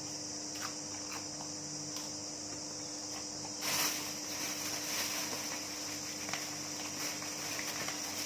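Steady high-pitched chirring of crickets, with a few faint clicks and a short rustle about four seconds in.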